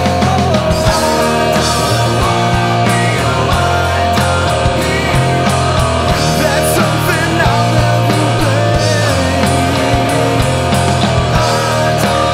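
Rock band recording at full volume: steady bass and guitars over a driving beat, with a singing voice or lead line bending in pitch at times.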